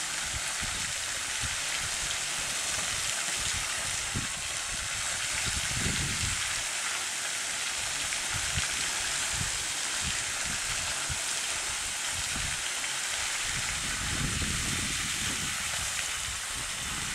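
Steady high hiss of outdoor pond-side ambience, with irregular low rumbles of wind buffeting the microphone.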